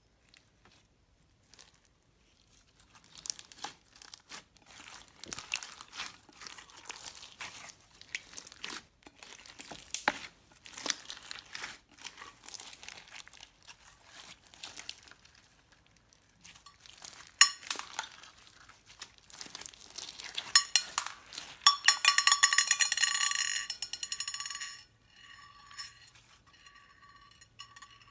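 Clear slime loaded with foam beads and sprinkles being kneaded and stretched by hand, making sticky, irregular clicking and crackling. It begins about two seconds in, and a fast, even run of crackles near the end is the loudest part.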